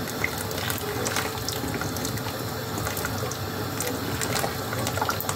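Pot of nihari gravy simmering on a gas stove as a thin stream of flour slurry is poured into it: steady liquid bubbling with scattered small pops.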